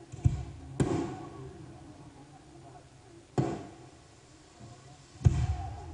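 Aerial fireworks going off: four sharp bangs, two close together in the first second, another about three and a half seconds in and the loudest near the end, each trailing off in a short echo.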